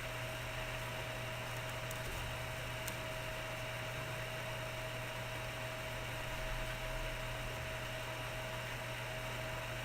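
Steady electrical hum and hiss of the recording microphone's noise floor, with a faint click about three seconds in.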